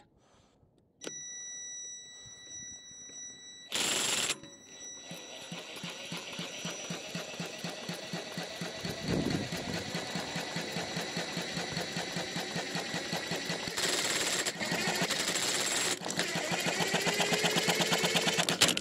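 Honda GX engine spun over by a cordless power tool on its flywheel nut during a spark check: a motor whine, then a fast rhythmic chatter that grows louder toward the end.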